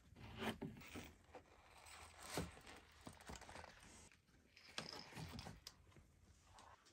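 Faint handling sounds of bare copper wire being bent and twisted by rubber-gloved hands: scattered light clicks and scrapes, the sharpest about two seconds in, and a cluster of small rustles around five seconds.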